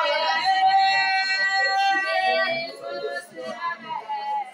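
Worship singing in long held high notes, dropping to quieter, broken phrases about two and a half seconds in.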